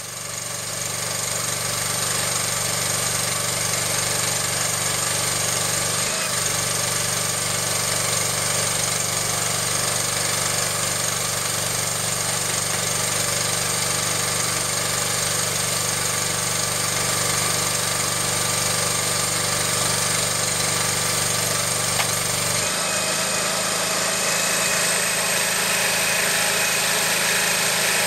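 Small engine of a hydraulic power pack running steadily, driving a hydraulic post puller. Its low note changes about 23 seconds in, typical of the hydraulic load on the engine changing.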